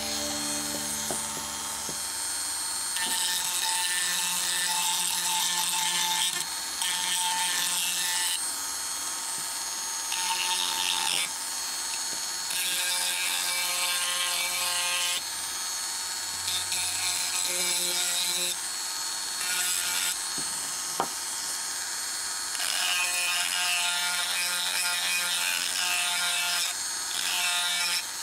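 Handheld rotary tool running steadily with a small sanding bit, its thin motor whine constant, and a gritty scratching that comes and goes in stretches of a few seconds as the bit is pressed against and lifted from the edges of a small piece of soft wood. One sharp click about two-thirds through.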